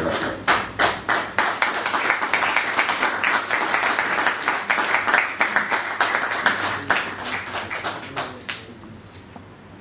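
Audience applauding: many hands clapping, dense and irregular, dying away over the last couple of seconds.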